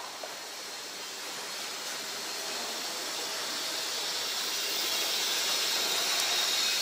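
A steady hiss that slowly grows louder, with a faint high whine joining about two-thirds of the way in.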